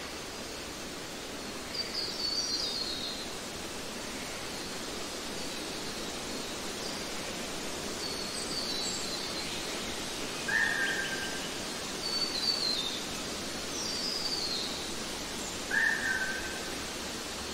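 Forest ambience: an even background hiss with birds calling over it, short high falling trills every few seconds, and twice a lower, brief falling call.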